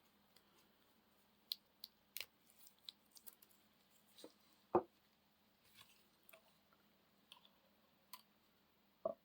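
Sparse light clicks and knocks of battery-pack parts being handled, with a louder knock almost five seconds in and another near the end.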